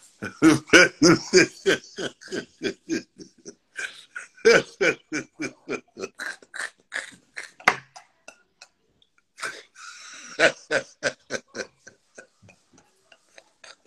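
A man laughing hard in long runs of quick pulses, about five a second, breaking off briefly around the middle and tailing off near the end.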